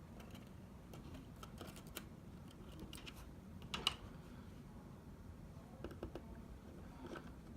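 Faint, scattered clicks and taps of small tools and parts being handled on an iPhone 6 screen assembly during disassembly, with one sharper click about four seconds in.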